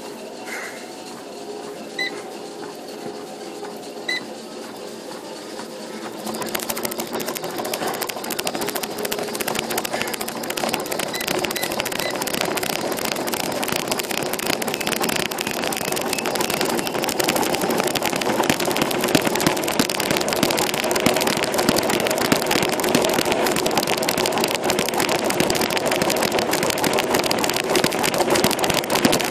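Three short beeps two seconds apart, then a cardio exercise machine starts about six seconds in and runs with a dense, steady rattle that grows louder partway through.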